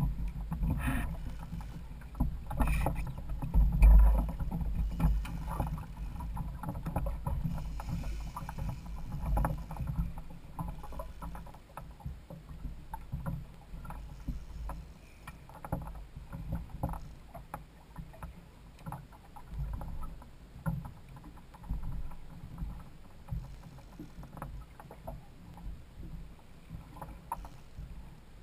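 Water lapping and slapping against the hull of a Hobie Adventure Island trimaran kayak, with a low wind rumble on the camera's microphone and scattered small irregular clicks and knocks. The rumble swells loudest about four seconds in.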